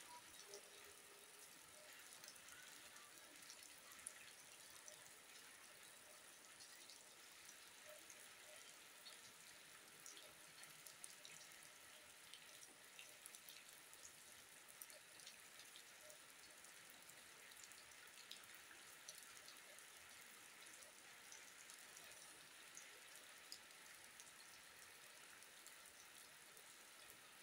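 Faint, steady rain, with many small drip and drop ticks scattered through it.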